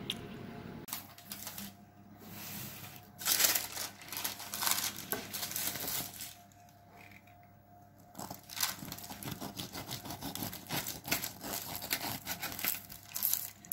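Crackling and rustling of a braided sesame loaf being handled on a paper-lined baking tray and then sawn with a knife, the crust crunching under the blade. It comes in bunches of scratchy crackles, with a quieter gap about halfway through.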